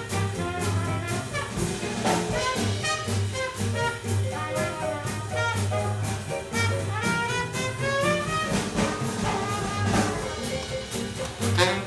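Small traditional jazz band playing live: trumpet carrying the melody over electric piano, bass and drums, with cymbal strokes keeping a steady swing beat.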